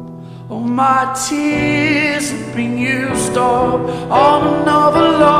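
Background music: a song with a singing voice holding long, wavering notes over sustained accompaniment.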